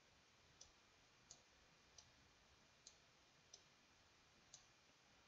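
Faint computer mouse clicks, six of them at uneven intervals, over near silence.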